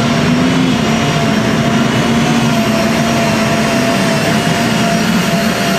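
Competition pulling tractor's engine running hard under load as it drags the weight sled down the track, loud and steady with a high whine held throughout.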